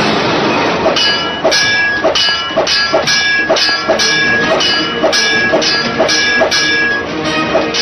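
Fight-scene soundtrack music with a steady beat of metallic clanging strikes, about two a second, each leaving a short ringing tone.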